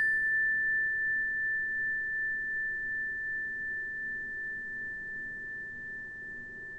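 A single high ringing tone from a struck chime, slowly fading over several seconds. Its brighter overtones die away in the first half second, leaving one pure pitch.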